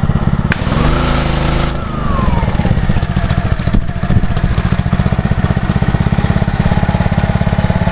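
Single-cylinder Honda GCV190 engine of a Ryobi 3100 PSI pressure washer running. About half a second in, a hiss of water spray lasts about a second as the trigger is squeezed, and the engine's pitch rises and then sinks back as the idle-down lets it fall toward idle; after that it runs steadily.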